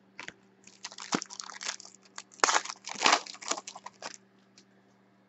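Foil trading-card pack wrapper being torn open and crinkled by hand: a run of crackles that is loudest in the middle and stops a little before the end.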